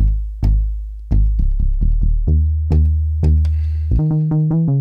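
Sub bass synth patch in Native Instruments Massive played from a keyboard: deep bass notes, each with a sharp click at the start, several held steady without dying away, then a quick run of short notes about four seconds in. The notes sustain because the amp envelope's level has been raised so the sub no longer decays out.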